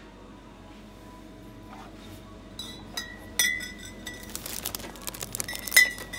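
Glass clinking: after a quiet start, a series of sharp clinks from about halfway through, each ringing briefly, the loudest near the end.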